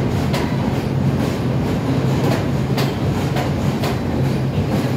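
MTA R62 subway train running past the platform: a steady low rumble from the cars, with the wheels clacking over rail joints about twice a second.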